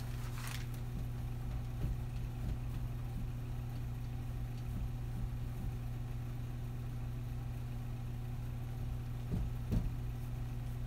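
A steady low hum, with a few faint taps.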